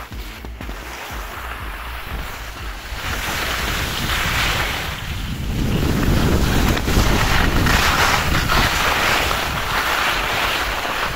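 Wind buffeting the microphone of a skier moving downhill, mixed with skis hissing over packed snow. It grows louder about three seconds in and again about six seconds in, as the run picks up speed.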